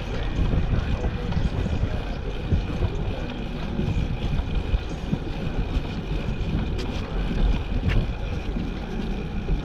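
Wind buffeting the microphone of a camera riding on a moving bicycle: a steady low rumble, with a faint steady whine above it and two brief clicks near the end.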